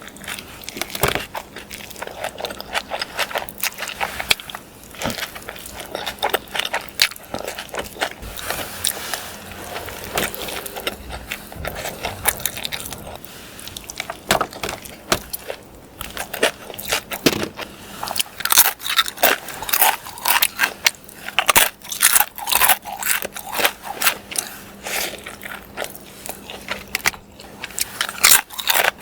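Close-miked eating of a burrito: chewing and mouth smacking with rapid crackly clicks, busiest in the second half.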